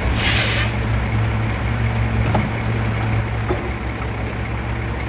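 A Volvo WX64 garbage truck's engine idling steadily with a low hum, opened by a short hiss of released air.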